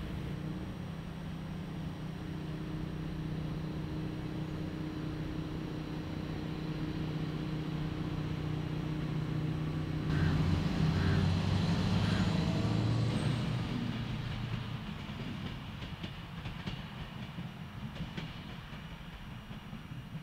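Diesel shunting locomotive's engine running steadily as it slowly moves a pair of passenger coaches past, loudest about halfway through and then fading away.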